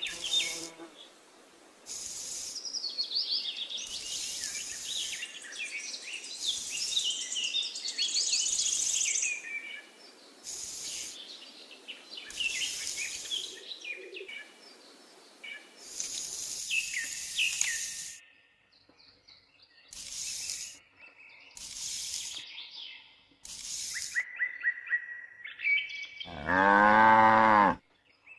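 Birds chirping throughout, with a series of short scrapes as a small hand hoe is dragged through sand. A single long cow moo sounds near the end.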